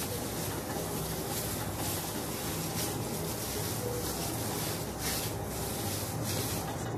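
Gloved hand squishing and mashing boiled potato with spiced chicken in a bowl, soft irregular rubbing strokes over a steady hiss and low hum.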